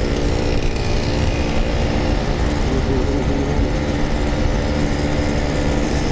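Yamaha RX King's two-stroke single-cylinder engine running steadily while the motorcycle is ridden, an even engine note with no revving up or down.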